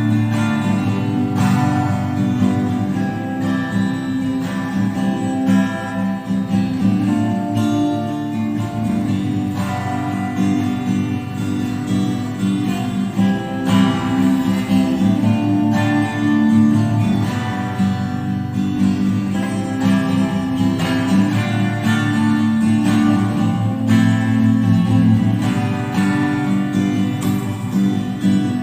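Acoustic guitar strummed steadily through an instrumental passage, with no singing.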